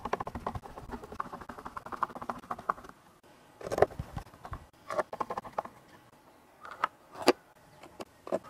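Small screws being driven into PVC housing panels with a hand screwdriver: fast light clicking and scraping for the first few seconds, then a few short bursts of turning and tapping, the sharpest click about seven seconds in.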